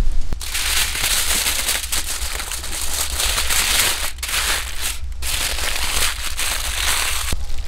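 Aluminium foil crinkling and crackling as hands fold and crimp it into a parcel around a whole trout. The rustle starts about half a second in and runs densely, with brief pauses twice midway and just before the end.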